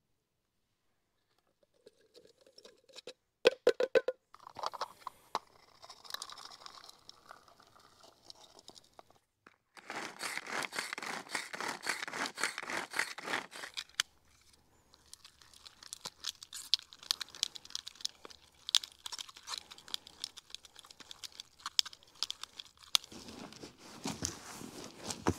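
Small hand-operated food chopper grinding sweetcorn and worms for fishing groundbait: runs of quick rattling clicks from the spinning blades, starting a few seconds in and densest around the middle. Near the end, a gritty rustle of hands mixing dry groundbait in a bowl.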